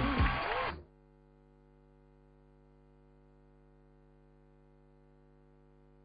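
A hip-hop song with a sung vocal, cutting off abruptly under a second in. Near silence follows, with only a faint steady hum.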